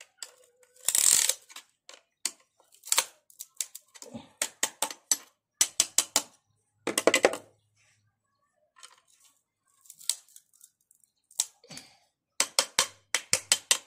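Rapid runs of sharp metal clicks and taps as a piston, its rings held in a ring compressor, is worked down into the cylinder liner of a Hyundai Grand i10 petrol engine.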